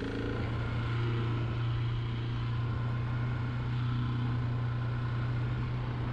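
Husqvarna dirt bike's engine running at a steady speed while riding, a constant drone with no revving or gear changes.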